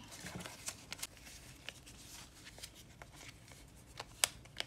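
Paper banknotes being handled and rolled up by hand: faint rustling and crinkling with scattered small clicks, one sharper click about four seconds in.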